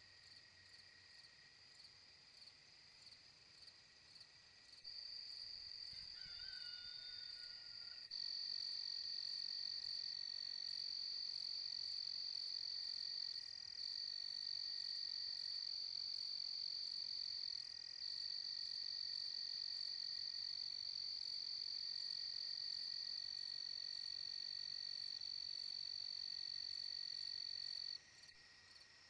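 Night-time chorus of frogs and insects: a steady high-pitched trilling that grows louder about five seconds in and again a few seconds later, then drops back near the end.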